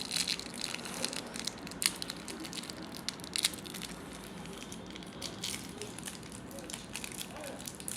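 Plastic wrapper of a Tom Tom menthol sweet crinkling and crackling as it is torn open, the crackles dense at first and thinning out about halfway through.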